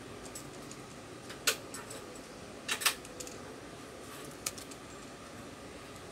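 Small hard clicks and taps of a smartphone and its display assembly being handled and turned over: a sharp click about a second and a half in, a quick cluster of clicks near three seconds in, and a lighter one past four seconds.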